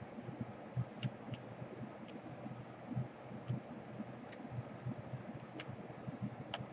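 Faint scattered clicks and soft knocks of small laptop parts and tools being handled during reassembly, over a steady low hiss.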